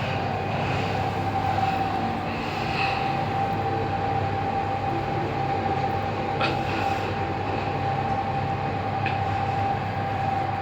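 Lift car descending at full speed: a steady whine from the drive with a low hum and rushing cabin ride noise, and a couple of faint clicks partway through.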